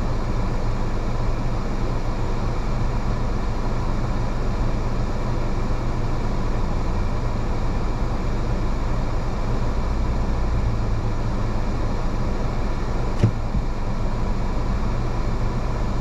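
A car driving along a road, heard from inside the cabin: a steady low rumble of tyres and engine, with a single sharp click late on.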